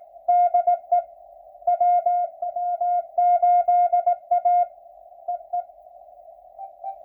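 Morse code (CW) signals on an 80-metre amateur radio receiver: one strong station keys a fast run of dits and dahs on a steady tone until about two-thirds of the way through. After that only a few short, fainter keyed blips come through, over a constant narrow band of receiver hiss at the tone's pitch.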